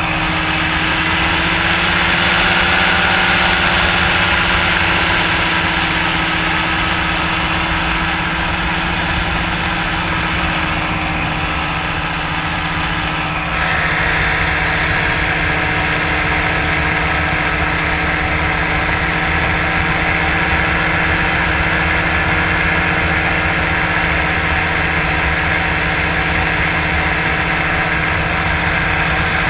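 Powered paraglider trike's engine running steadily in flight, with a broad rush of air. The engine tone shifts abruptly about halfway through, then holds steady again.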